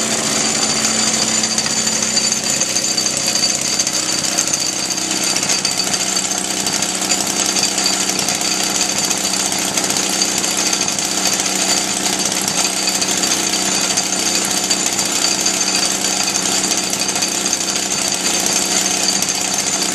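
1939 Maytag twin-cylinder two-stroke engine running steadily with a rapid, even firing rhythm, driving a grain mill.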